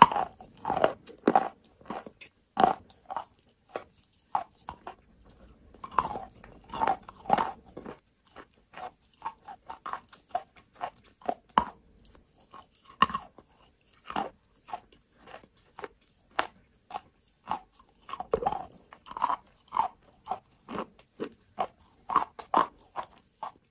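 Lumps of chalk being bitten and chewed: a run of sharp, dry crunches at an uneven pace.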